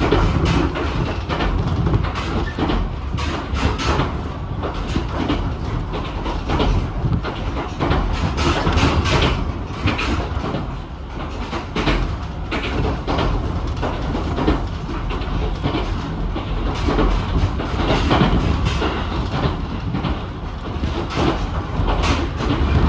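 Ichibata Electric Railway 7000 series electric train running at speed, heard from inside the passenger car: a steady rumble with frequent clicks and knocks of the wheels over the rails.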